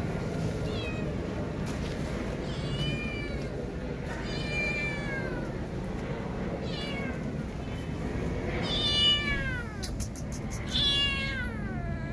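Young calico kitten meowing repeatedly: about six drawn-out calls that fall in pitch, the loudest two near the end. It is a kitten calling for its mother, who does not come.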